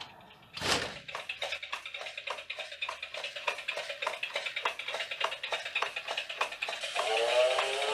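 Sound-effect fingertip taps of a crawling severed hand on a hard floor: an irregular run of light ticks, about three or four a second. A sudden whoosh-like hit comes about half a second in. A high shimmering music bed plays under the taps, and eerie music with rising tones swells in near the end.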